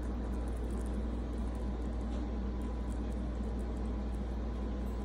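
A steady low machine hum with an even hiss over it, and faint small ticks scattered through.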